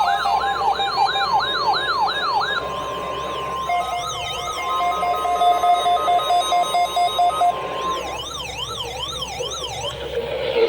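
Several electronic siren tones layered together. Fast rising-and-falling sweeps over a steady tone give way about three seconds in to a pulsing, beeping tone, then to slower up-and-down wails near the end.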